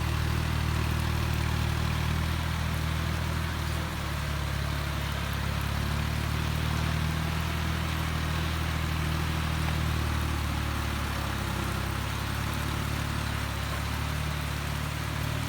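Kubota diesel engine running steadily at a low, even speed, with a slight dip about four seconds in, over a steady hiss.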